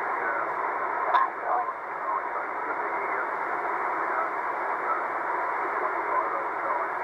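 Shortwave receiver's speaker giving out steady hiss and static on a single-sideband ham band, with a faint, unintelligible voice in the noise and one sharp static pop about a second in.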